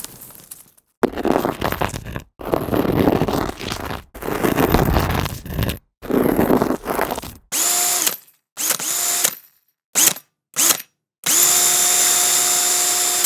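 A power tool, such as a drill, run in separate bursts: first several rough, noisy runs of about a second each, then shorter runs with a steady whine that swings up in pitch as each one starts.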